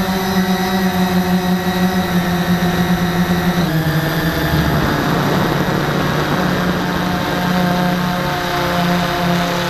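Cheerson CX-20 quadcopter's electric motors and propellers whirring steadily, picked up by the camera mounted on the craft. The motor tones shift in pitch about four seconds in and waver near the end.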